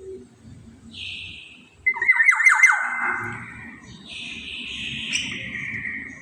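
Black-naped oriole (kepodang) giving harsh, nasal squawking calls. A short call comes about a second in, then the loudest burst, a quick run of notes falling in pitch, around two seconds in, then a long rasping call that slides downward from about four seconds in.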